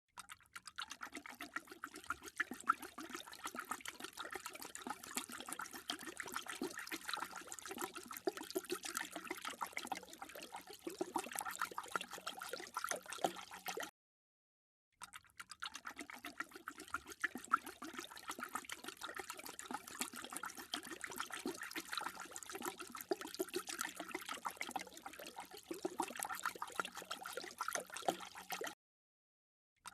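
A dog lapping water from a bowl: a rapid, steady run of wet splashy laps. It cuts to silence for about a second partway through, then another stretch of lapping follows and stops shortly before the end.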